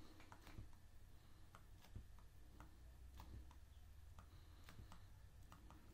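Near silence with faint, irregular ticks and taps of a stylus on a pen tablet during handwriting, over a low steady hum.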